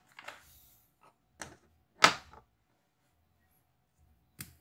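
A few sharp clicks and knocks of small hard parts being handled while working inside an opened laptop, the loudest about two seconds in.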